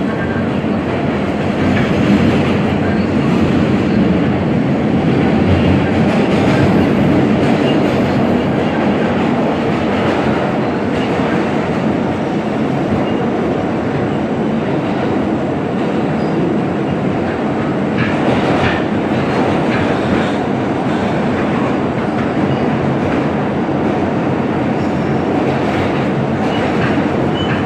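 A Siemens R160B subway car running at speed through a tunnel, heard from inside the car: a steady rumble and rail noise, with a few clicks from the wheels over the rails.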